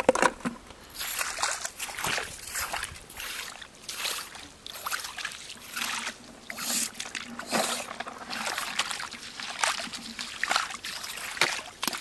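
Shallow seawater splashing and sloshing as rubber boots wade through a tidal pool and long metal tongs jab into the water after crabs, in quick irregular splashes.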